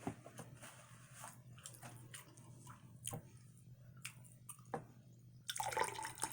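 Close-up chewing of a large mouthful of coconut rice, egg, cheese and bacon: soft, wet, squishy mouth sounds with scattered small clicks. Near the end a louder rushing noise sets in.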